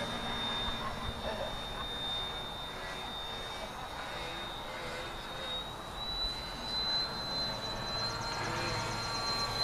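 Radio-controlled model airplane's motor whining at a steady high pitch as it flies overhead, the pitch edging slightly higher about six seconds in.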